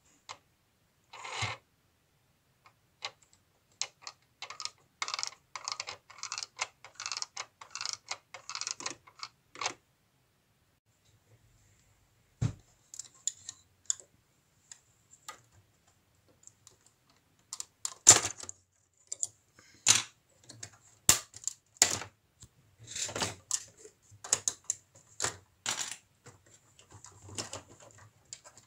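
LEGO plastic parts clicking and rattling as they are handled and pulled apart, in irregular clusters of sharp clicks with short pauses between them.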